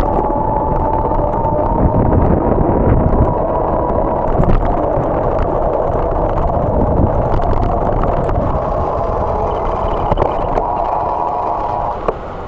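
Riding noise of a bicycle on asphalt: a steady rumble and rattle of the bike and its camera mount over the road, with occasional sharp knocks at cracks and bumps. It eases off a little near the end.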